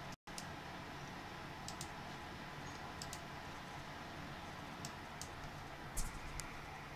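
Computer mouse buttons clicking, several sharp clicks, some in quick pairs, as the stress-test programs are closed, over a steady background hiss. A low thump about six seconds in is the loudest moment, and the sound drops out briefly just after the start.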